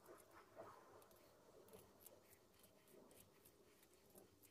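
Faint scraping and small clicks of a knife blade shaving a thin wooden peg by hand.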